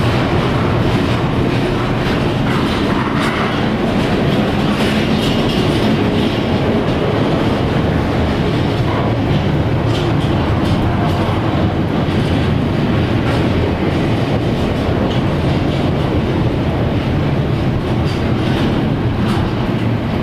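Long freight train passing at speed, a steady loud rumble with wheels clicking over rail joints.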